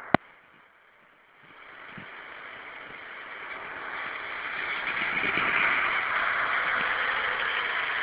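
Heavy rain hissing steadily, swelling over the first few seconds. A single sharp click right at the start.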